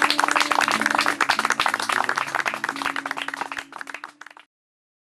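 Acoustic guitar ringing out with steady low notes under rapid, irregular clapping. The sound cuts off suddenly about four and a half seconds in.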